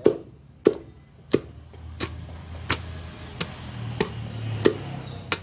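Wooden pestle pounding a wet chili paste with chopped fruit in a large mortar, a steady knock about every two-thirds of a second.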